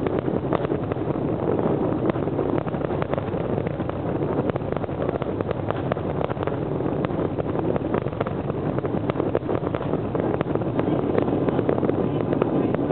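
Distant aerial fireworks going off in a rapid, irregular run of sharp pops and crackles over a steady rumble.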